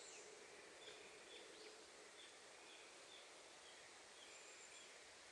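Near silence outdoors: a faint small bird giving short, high chirps about two a second over a light hiss of ambient noise.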